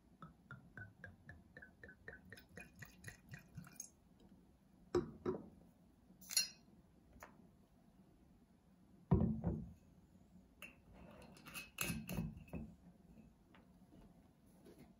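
Brandy glugging from a bottle into a glass snifter, about four glugs a second, rising in pitch as the glass fills. After it stop, a few knocks and clinks of glass on the table, the loudest a heavy thump about nine seconds in.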